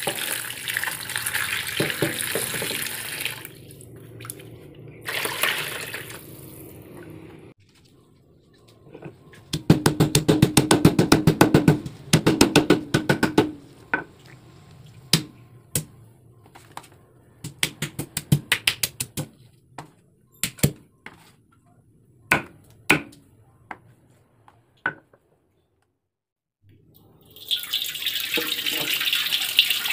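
Tap water running into a sink while ingredients are rinsed. Then spices are pounded in a stone mortar, first a fast run of knocks, then slower single knocks. Near the end, water from the tap runs into a metal wok.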